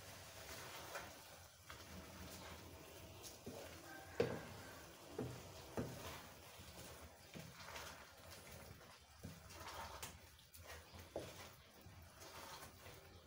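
Wooden spatula stirring thick, wet grated-carrot halwa in a non-stick pan: faint moist scraping and squelching with scattered taps of the spatula against the pan, the loudest about four seconds in.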